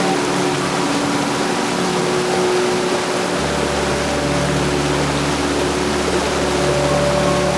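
Heavy rain falling steadily, a dense even hiss, with a faint low hum underneath that deepens about three seconds in.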